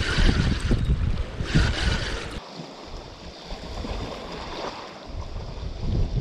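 Wind buffeting the microphone with a heavy low rumble over the wash of sea waves on rocks. The rumble drops away suddenly about two and a half seconds in, leaving a softer sea hiss, and builds again near the end.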